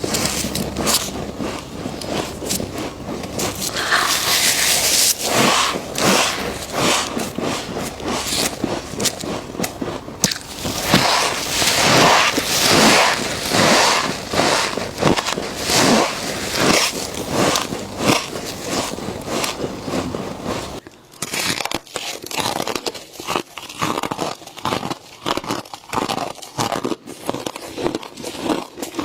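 Close-up crunching of frost being bitten and chewed: a dense, irregular run of crisp crunches and crackles. About 21 s in, the background hum drops out and the crunching goes on more sparsely.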